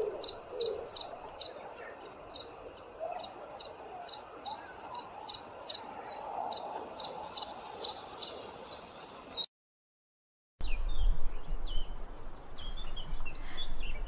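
Birds chirping: a steady run of short, high chirps repeated a few times a second. Just after the middle the sound cuts out for about a second, and a different recording follows with a low rumble and a few scattered bird calls.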